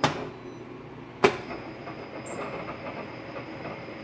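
Inverter-driven milling machine spindle running, with two sharp clicks about a second apart as the spindle's forward/reverse control is switched.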